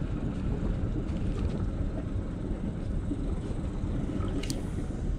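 Steady wind rumbling on the microphone over a small boat on rippled water, with one short, sharp click about four and a half seconds in.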